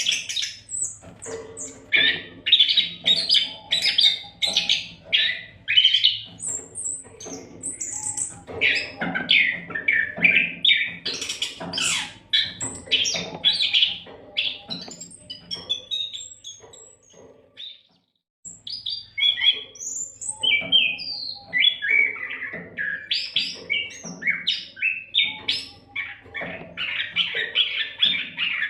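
Oriental magpie-robin (kacer) singing a continuous, varied song of rapid chirps and whistles. The song breaks off into silence for about a second a little past halfway, then resumes. A faint steady low hum runs under it.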